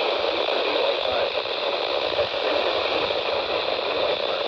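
Steady hiss of radio static from a radio receiver, with no voice or tones coming through.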